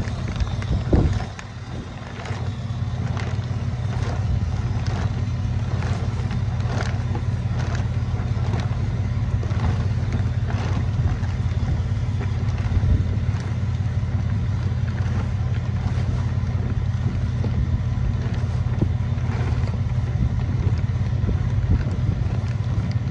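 Strong wind buffeting the microphone in a steady low rumble, while a loose plastic grain storage bag flaps and crackles irregularly in the gusts.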